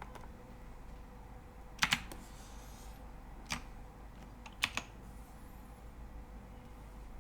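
A computer keyboard's keys pressed a few times: a quick pair of clicks about two seconds in, a single click a second and a half later, and another quick pair near five seconds, over a faint steady hum.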